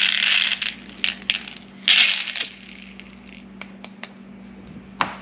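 Number four shot pellets from a 20-gauge shotgun shell spilling out onto a surface in two pours, one at the start and another about two seconds in, followed by a few scattered clicks.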